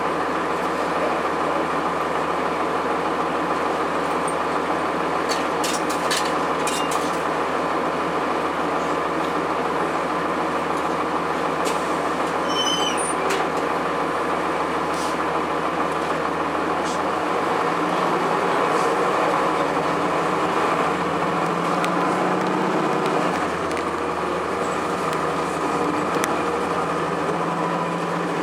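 Cummins ISC six-cylinder diesel of a 2002 Blue Bird CS transit bus running under way, heard inside the cabin with steady road and body noise. Partway through the engine note changes and a rising tone follows as the bus pulls through its Allison automatic transmission. A few short clicks and chirps come through the rattle.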